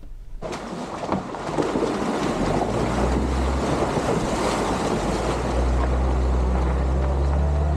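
Suzuki Jimny engine running steadily under load, a low drone beneath a heavy rush of wind noise on the microphone that cuts in about half a second in.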